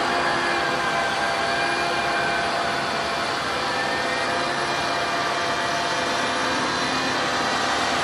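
Caterpillar 966M wheel loader's diesel engine working hard as the loader pushes into a heap of chopped maize silage. It is a steady engine and cooling-fan noise with a faint whine that drifts slightly in pitch.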